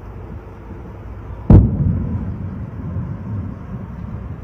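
A Kh-101 cruise missile exploding in the city: one sharp boom about a second and a half in, followed by a low rumble that trails off over a couple of seconds.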